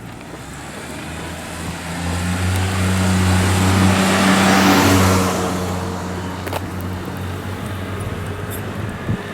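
A motor vehicle passes close by. Its engine hum and road noise swell to a peak about halfway through, then fade as it moves away.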